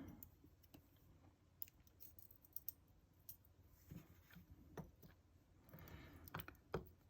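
Faint, scattered small clicks and taps of a Yale euro cylinder lock and its tools being handled while it is taken apart.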